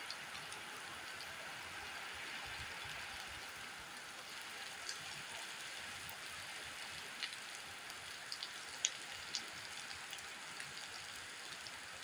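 Steady rain falling on a wet concrete yard: an even hiss with scattered sharper drop ticks, a few louder ones in the second half.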